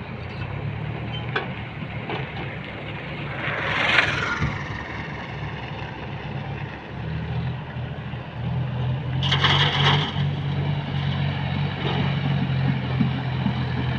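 Diesel engine of an excavator or tractor running steadily, pulling harder and louder about seven seconds in and again about eight and a half seconds in. Two short, louder rushing noises stand out around four and ten seconds in.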